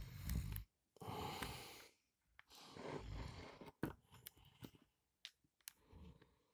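Rustling and handling noise close to the microphone as a handheld camera is moved about in bedding, in three bursts of about a second each, followed by several light clicks or taps in the second half.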